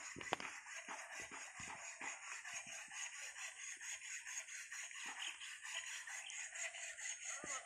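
Faint outdoor ambience: a steady, high-pitched pulsing drone, with soft irregular thumps and one sharp click about a third of a second in.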